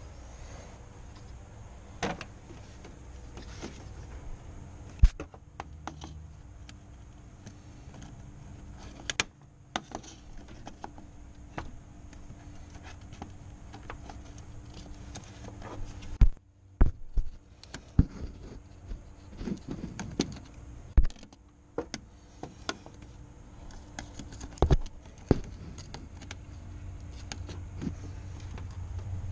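Irregular clicks, knocks and rattles of hands handling parts under a car's hood while fitting a power steering reservoir and its hoses, over a low steady background. A low rumble builds near the end.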